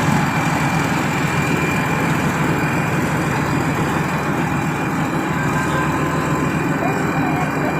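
Combine harvester's diesel engine running steadily under load as the machine is driven up onto a truck trailer, a low drone with a faint high whine over it.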